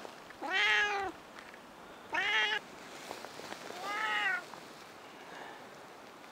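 Tortoiseshell cat meowing three times, each meow rising and then falling in pitch.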